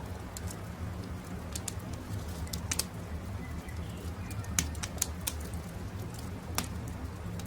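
Campfire crackling, with sharp pops scattered through and the loudest about four and a half seconds in, over a low steady rumble, with birds calling faintly in the background.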